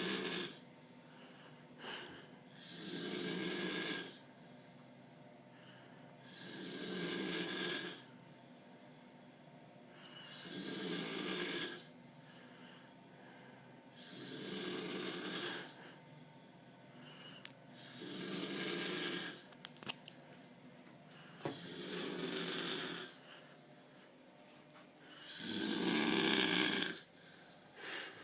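A sleeping person snoring like mad: a long snore about every four seconds, seven in a row, with quieter breathing between them and the loudest snore near the end.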